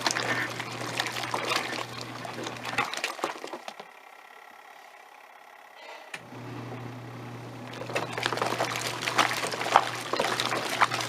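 Giantex Costway twin-tub washing machine's wash tub agitating clothes in sudsy water: a steady motor hum under sloshing water. The motor stops about three seconds in and starts again about three seconds later, the wash timer pausing the pulsator before it turns the other way.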